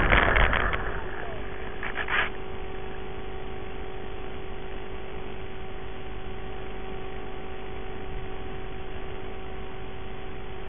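Audio from the onboard camera of a Dynam Waco RC biplane as its electric motor winds down and the plane rolls to a stop on grass, fading out over the first second. After that a faint steady whine holds two constant pitches under a light hiss, with a brief rustle about two seconds in.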